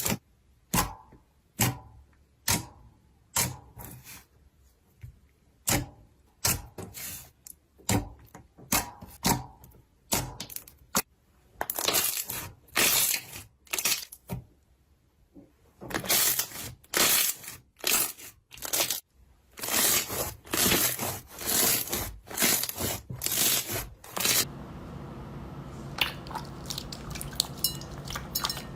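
Slime being squeezed and pressed, giving irregular sharp crackles and pops, some single and some in short crunchy runs. About 24 seconds in the sound changes to a steady low background with a fast scatter of small clicks.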